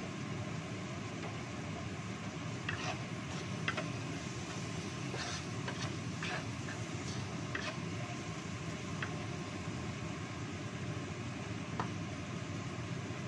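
Wooden spatula scraping and knocking against a non-stick wok while stir-frying sliced shallots, garlic and spring onions, a scatter of short clicks through the middle and one more near the end, over a steady low rushing noise.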